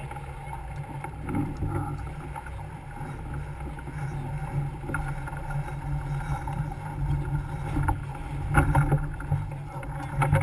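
Wind buffeting the microphone over the rush of water along a sailboat's hull as it sails under way, a steady low rumble. A few short knocks come about eight to nine seconds in.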